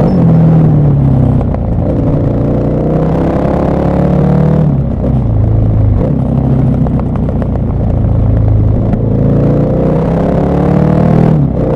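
KTM 1190 Adventure R's LC8 V-twin engine pulling hard under acceleration. Its pitch climbs and drops sharply about four times as the rider shifts up through the gears.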